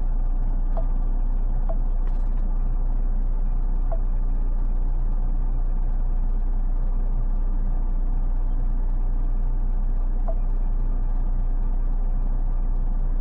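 Ford Mustang's engine idling steadily, heard from inside the cabin as a low, even rumble. A few faint short blips sound over it now and then.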